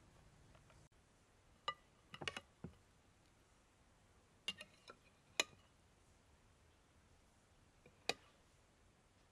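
Quiet room tone with a few sharp, light clicks and clinks of small hard objects knocking together, scattered in small groups, the loudest about five seconds in.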